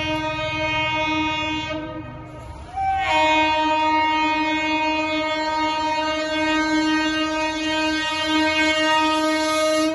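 Horn of an approaching Indian Railways electric locomotive. One blast stops about two seconds in, then after a short break a louder, long blast is held for about seven seconds and cuts off suddenly.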